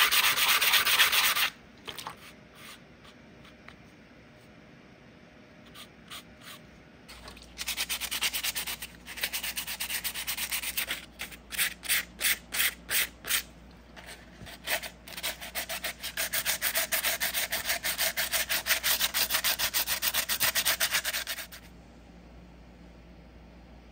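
Hand wet-sanding: wet sandpaper rubbed back and forth over the hard layered body shell of a model snowmobile to smooth its ridges. It scrubs steadily at first and stops after about a second and a half. After a few scattered strokes it comes back as a run of separate strokes, then as steady fast scrubbing that stops shortly before the end.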